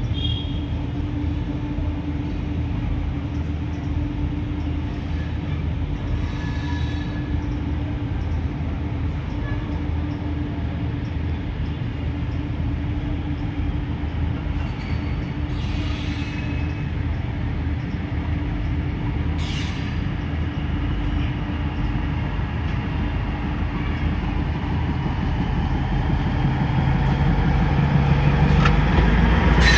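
A train standing alongside hums and rumbles steadily with one constant low tone. Over the last few seconds the rumble of an approaching passenger train on the next track grows louder.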